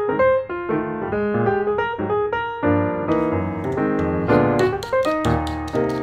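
Background piano music, with a quick run of crisp ticks in its middle.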